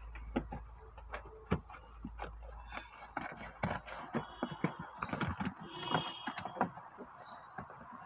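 Irregular clicks, knocks and scrapes of hands working on plastic trim and a stiff clear plastic sheet under a car's dashboard, with a low hum that stops about three seconds in.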